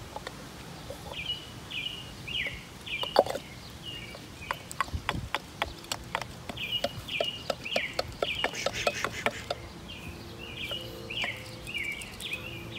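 A run of small sharp metal clicks and clinks as the parts of a torn-down scroll AC compressor are handled and turned, densest in the middle. A bird chirps over and over in the background, in quick series of short falling notes.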